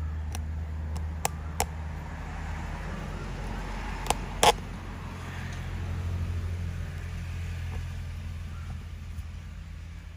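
A steady low engine-like hum, with a few sharp clicks and taps over it. The loudest is a quick double click about four and a half seconds in.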